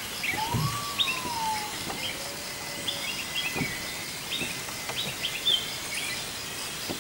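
Several birds calling: many short, quick high chirps, and one long whistled note that rises and then falls about half a second in. A steady, evenly pulsing high trill runs behind them.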